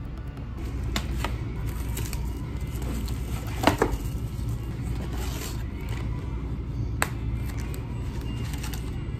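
Clear plastic film crinkling and crackling as it is torn off a plastic tteokbokki cup and the cup is opened. There are several sharp crackles; the loudest is a double crackle a little over a third of the way through, and another comes about three-quarters through. A steady low hum runs underneath.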